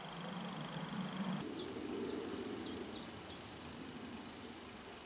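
A small songbird singing a rapid series of short, high chirps, beginning about a second and a half in, over steady outdoor background noise.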